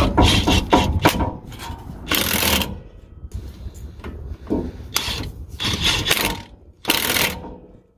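Ratchet wrench clicking in about seven short bursts, tightening the driveshaft bolts at the pinion flange of a Ford 8.8 rear axle.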